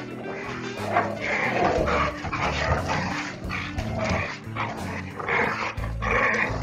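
Dogs barking and yipping in a run of short barks, roughly two a second, over background music with a steady bass line.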